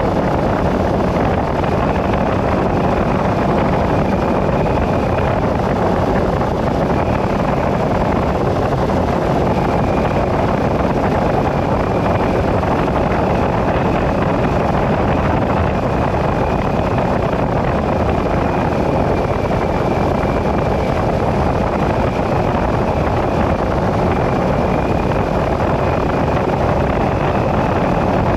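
A vehicle driving along a road: steady, unbroken engine and road noise, with a faint high whine coming and going.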